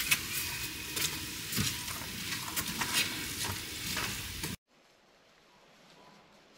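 Plastic bag rustling and crinkling as it is handled, a dense run of small crackles. It cuts off abruptly about four and a half seconds in, leaving near silence.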